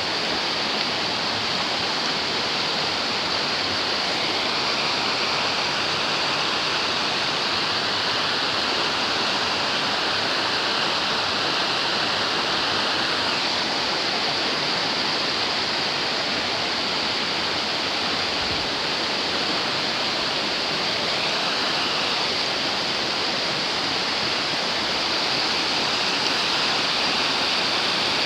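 Fast-flowing river water rushing and splashing steadily, a constant full roar of falling and tumbling water.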